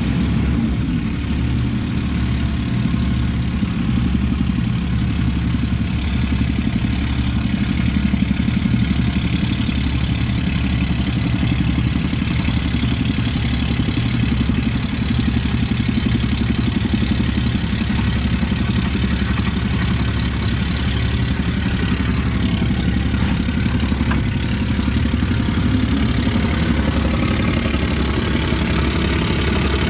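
Diesel engine of a piece of compact heavy equipment running steadily at working speed, with a low, even throb.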